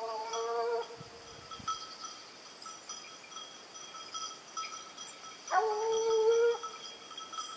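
Hunting hound baying twice, each bay one long held note about a second long, the two some five seconds apart: a pack hound giving tongue on a wild boar's trail.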